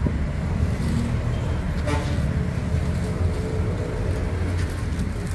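Diesel engine of a wheeled mobile crane running steadily with a low rumble while it holds the slung load.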